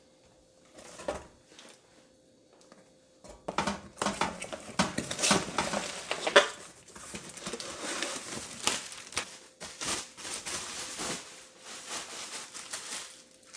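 Cardboard box handled and opened, then bubble-wrap packaging rustling and crinkling with scattered sharp clicks and knocks as a new control board is pulled out and unwrapped. After a single knock about a second in, the rustling starts about three seconds in and goes on irregularly.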